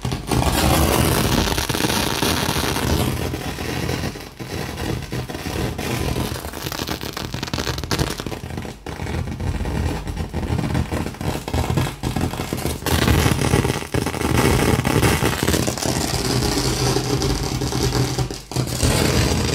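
A Fisher CA-7700 hi-fi putting out loud, rough noise with a low buzz underneath instead of clean sound, dropping out briefly a few times. This is the sound fault the unit has.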